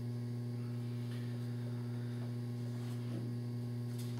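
Steady electrical mains hum: a low, constant tone with a fainter one an octave above, and a faint tick near the end.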